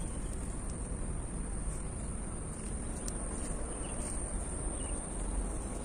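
Steady, high-pitched, unbroken chirring of insects in the evening.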